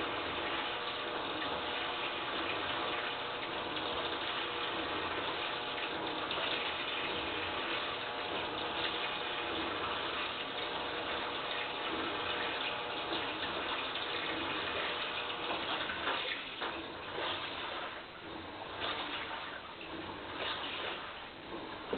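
Toshiba AW-DG16WAG washing machine running with water rushing and a steady whine over it; about sixteen seconds in, the sound turns uneven and surging.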